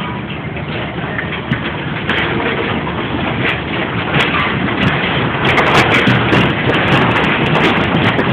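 Lightning Skid fairground ride running: a loud, dense noise that grows louder through the second half.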